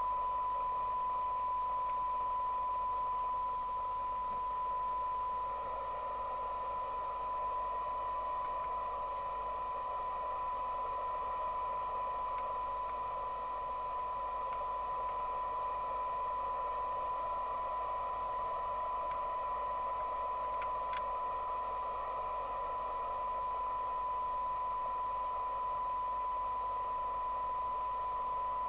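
A steady 1 kHz test tone from an SMC Oscar 1 FM CB receiver's speaker, the signal generator's modulation coming through the set, with a band of hiss around it while the receiver's IF stages are being aligned.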